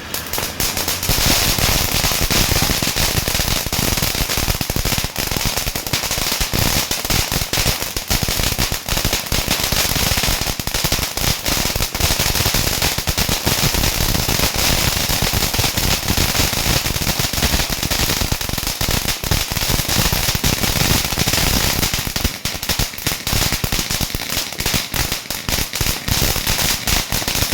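Firecrackers going off in a rapid, unbroken run of sharp bangs and crackles, several lit at once.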